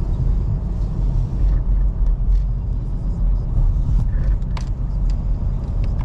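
Steady low rumble of a car driving, heard from inside the cabin, with a couple of faint clicks about four and a half seconds in.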